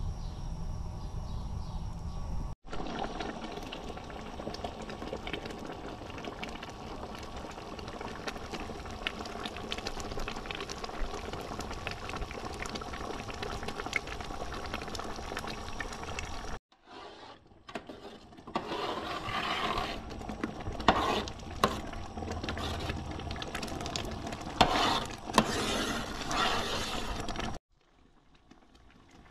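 Pomegranate juice boiling hard in a large steel pot, thick bubbles popping and spluttering, with a few louder pops in the second half. The sound cuts off abruptly three times as the shots change.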